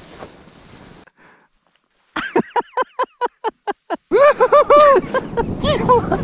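A man laughing hard: a quick run of about ten short 'ha's, then longer drawn-out laughs that rise and fall in pitch. Before that comes a faint rush of wind or sliding snow.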